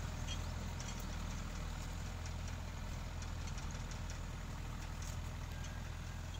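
Small tractor's engine running steadily as it pulls a bed-forming implement through the soil.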